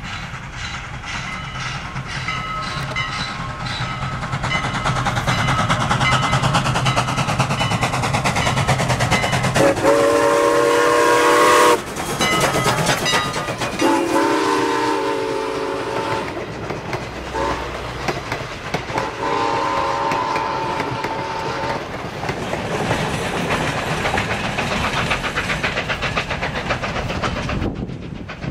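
A 1910 Canadian Locomotive Company 2-6-0 Mogul steam locomotive comes on with its exhaust beating in a quick, even rhythm. About a third of the way in it sounds its chime steam whistle: two long blasts, a short one and a long one, the grade-crossing signal. As it goes by, its wheels click steadily over the rail joints.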